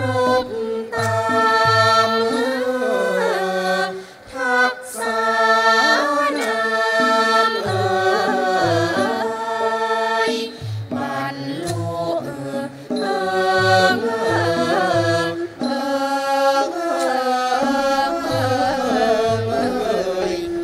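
Thai classical chorus singing a royal tribute song in long, gliding sung lines, accompanied by a traditional Thai ensemble with low drum strokes every second or so.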